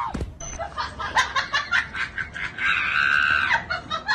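People laughing in quick bursts, with one long, high-pitched shriek about two and a half seconds in.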